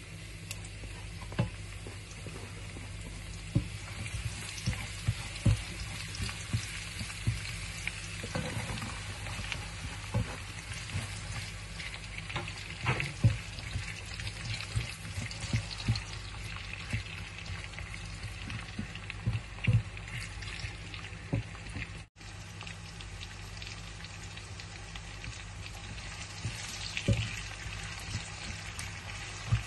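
Chopped onion and garlic sizzling in a hot frying pan, a steady hiss, with repeated sharp knocks and scrapes of a plastic spatula against the pan and plate as the food is pushed in and stirred.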